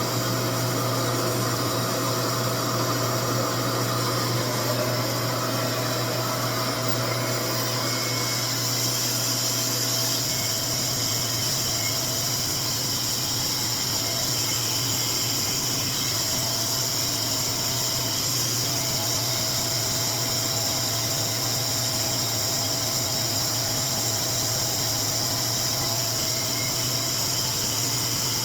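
RevAir suction hair dryer running steadily, its motor drawing hair into the wand and blowing hot air in a constant whir; the low hum shifts slightly about ten seconds in.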